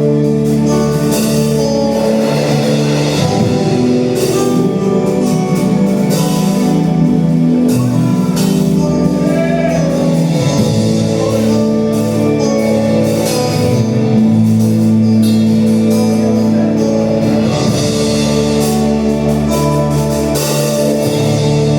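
Worship band playing gospel music: held chords over a steady drum beat with guitar, and some singing.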